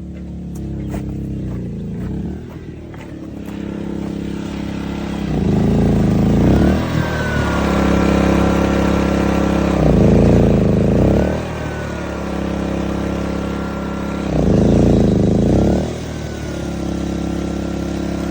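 Westinghouse dual-fuel portable inverter generator running and surging: the engine picks up speed and gets louder, then drops back, about every four to five seconds, with a faint whistle that slides down in pitch at each rise.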